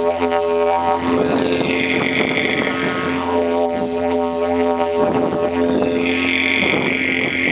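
Didgeridoo made of white PVC pipe played as a deep, continuous drone imitating a bullfrog's call. A bright upper overtone swells in and fades out twice over the steady drone.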